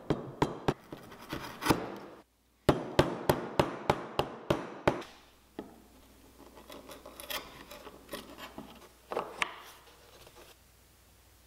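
Chisel being struck with a mallet, a quick run of sharp knocks about three a second, as a recess for a wooden inlay is chopped out. Later come quieter scraping and a couple of light knocks as the wooden inlay piece is worked into the recess.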